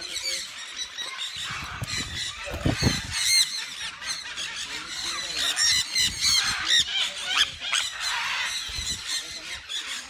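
Sun conures screeching: many short, shrill calls overlapping one another without a break.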